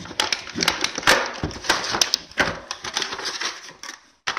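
Action figure box being opened by hand: irregular rustling, scraping and crackling of cardboard packaging and its clear plastic tray, breaking off briefly near the end.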